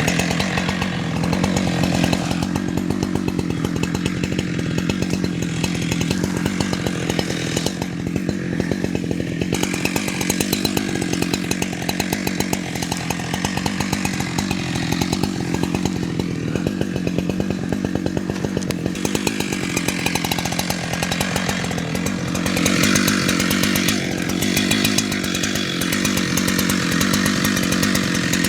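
Two-stroke chainsaw running and cutting through the wood of a fallen tree, its engine note shifting as it works through the cuts and easing down for a while past the middle.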